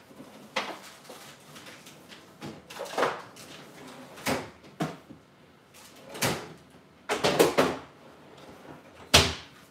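Kitchen cupboard doors and drawers opening and closing, a string of separate knocks and bangs, with several quick ones together about seven seconds in and one more near the end.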